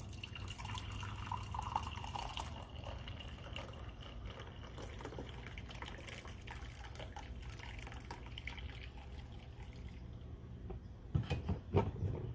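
Liquid dripping and trickling over a steady low hum, with a few louder knocks near the end.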